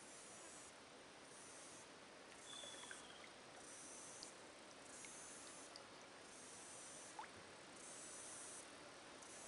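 Near silence of eucalypt bush: a faint high-pitched insect buzz that swells and fades about once a second, with a couple of faint, brief bird chirps.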